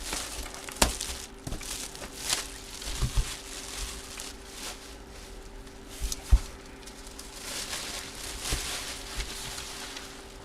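Plastic and cardboard packaging being handled and torn open, with crinkling, rustling and scattered light taps and clicks. A faint steady electrical hum runs underneath.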